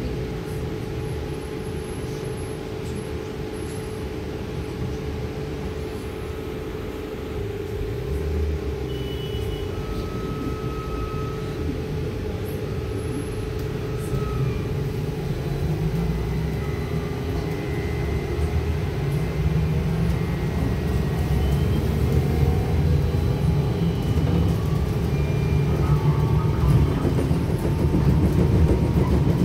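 Trolza-5265.00 Megapolis trolleybus heard from inside the passenger cabin while riding: a steady electrical hum over the low rumble of the body and tyres on the road, growing louder in the second half as it picks up speed.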